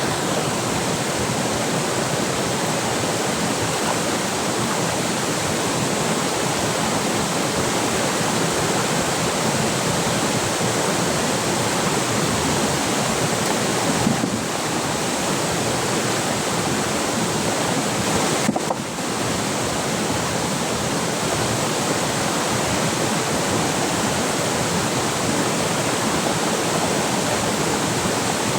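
Fast-flowing river water rushing steadily and loudly, with two brief dips about halfway through.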